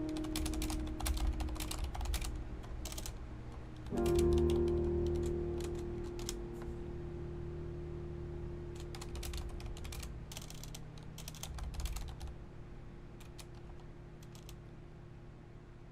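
Typing on a Corsair mechanical keyboard: quick runs of key clicks in three bursts, then a few scattered keystrokes that die out near the end.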